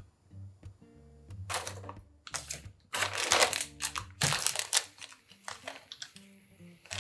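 Plastic packets of a fresh naengmyeon noodle kit crinkling and rustling as they are handled and opened, in several loud bursts through the middle, over soft background music.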